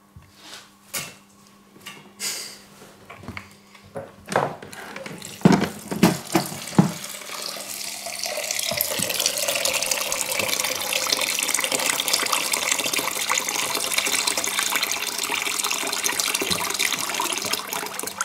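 Scattered knocks and handling sounds from hands working boiled chickpeas in a plastic bowl. About eight seconds in, a kitchen tap starts running steadily into the bowl in the sink, filling it with water to rinse off the loosened chickpea skins.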